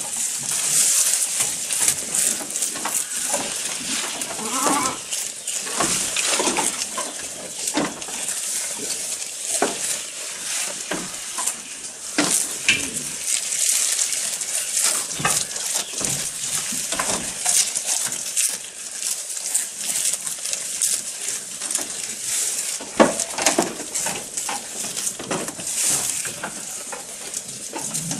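Several goats chewing and tearing long leaves of fresh green fodder grass: a continuous dense crackle of crunching and rustling leaves with many small snaps.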